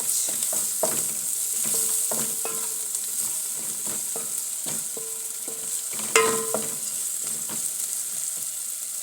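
Onions frying in oil in a pot, sizzling steadily, while a spoon stirs them with repeated clinks against the pot; the loudest clink, with a short ring, comes about six seconds in.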